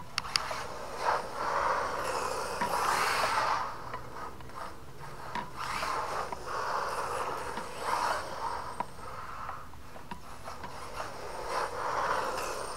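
HSP 94123 electric RC rally car with a brushless motor driving on a concrete driveway: tyres and drivetrain give a rasping noise that swells and fades several times as it speeds up and slows, with one swell as it comes close near the end.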